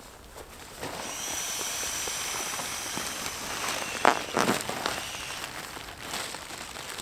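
Crinkly inflatable sleeping pad being unrolled and handled: a steady crinkling rustle, with two louder crackles about four seconds in.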